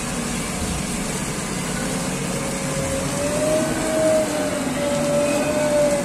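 JCB 3DX Xpert backhoe loader's diesel engine running steadily, with the hiss of water spraying down over the machine.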